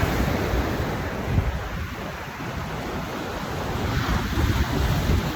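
Ocean surf washing on the shore, with wind buffeting the microphone.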